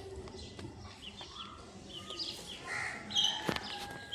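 Birds chirping and calling, many short high notes overlapping, with a single sharp click about three and a half seconds in.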